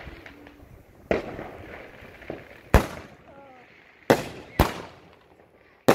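Fireworks going off: five sharp bangs at irregular intervals over a few seconds, each trailing off briefly, with a smaller pop between the first two.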